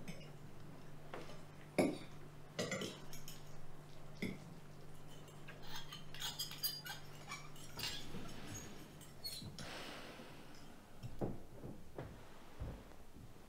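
A fork clinking and scraping against a plate as someone eats: a series of sharp, irregular clinks over a steady low hum.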